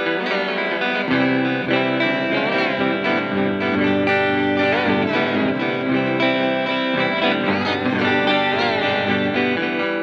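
Electric guitar played through a Fender Reflecting Pool delay and reverb pedal: held notes and chords wash together in reverb and delay repeats. Lower notes come in about a second in, and midway the pedal's delay Time knob is turned, making the repeats bend in pitch.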